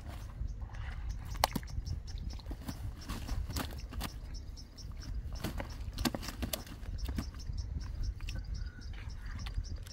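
Irregular wet knocks, slaps and splashes as large fish are handled in a plastic basin of muddy water and moved into a woven sack, over a steady low rumble.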